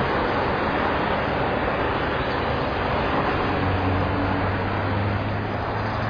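Steady rushing background noise picked up by an outdoor nest-camera microphone, with a low hum joining from a little past halfway to near the end.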